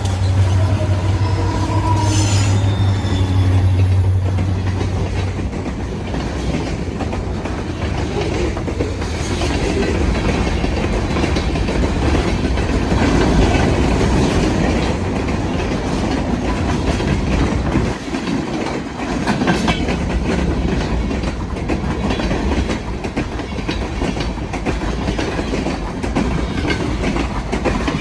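Train passing at speed: the low steady drone of a classic EMD two-stroke diesel locomotive working in notch 8, full throttle, fades out after about five seconds. The rolling cars follow with a continuous rumble and rhythmic clickety-clack of wheels over rail joints.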